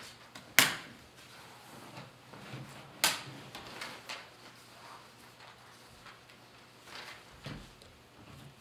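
Handling noises while handout sheets are passed around: two sharp knocks, the first about half a second in and the second around three seconds in, with a few fainter clicks and shuffles between them.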